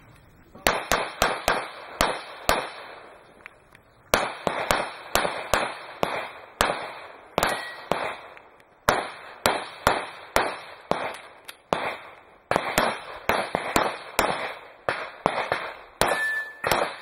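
Rapid strings of 9mm semi-automatic pistol shots, several a second, broken by short pauses of about a second and a half. Twice a brief high ring sounds among the shots.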